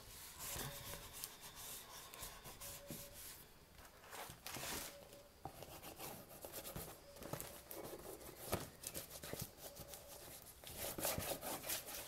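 Faint rubbing and scraping of a bone folder pressed over paper glued onto a cardboard box, with a few light taps.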